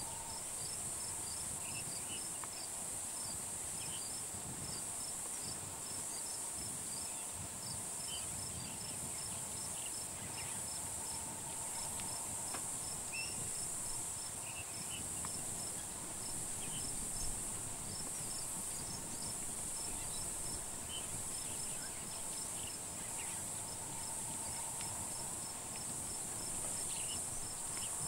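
Steady, high-pitched chorus of insects, with a lower ticking call repeating at an even pace and scattered short chirps.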